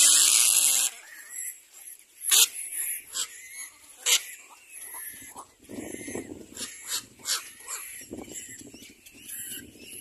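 Little black cormorant chicks begging at the nest. A loud hissing squawk opens, then come short sharp calls and a longer run of harsh, wheezy rasping calls in the middle.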